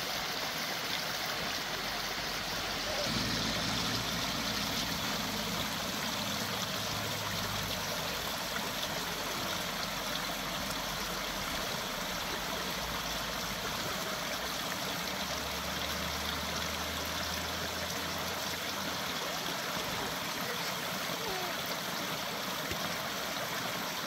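A small rocky brook running over stones and little cascades: a steady rush of water.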